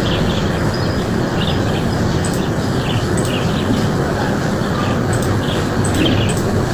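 Birds chirping in short, scattered high notes over a loud, steady rushing noise.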